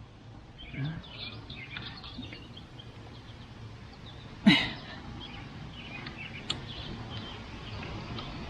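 Birds chirping faintly over steady outdoor background noise, with one short loud human vocal sound about halfway through and a brief sharp click a couple of seconds later.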